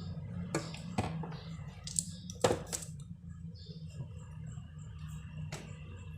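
A handful of sharp clicks and knocks, like objects being handled and set down, the loudest about two and a half seconds in, over a steady low hum.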